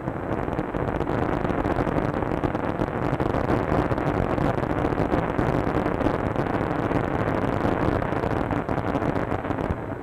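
Surf and rough water rushing and crashing in a steady, dense roar, heard through the dull, narrow sound of an old film soundtrack.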